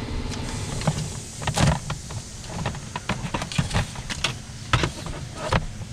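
A string of irregular knocks and clatters, the loudest about one and a half seconds in and again near five seconds, over a low steady hum.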